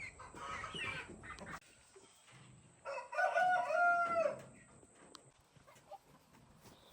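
A rooster crows once, about three seconds in, one long pitched call of roughly a second and a half, with fainter chicken sounds before it.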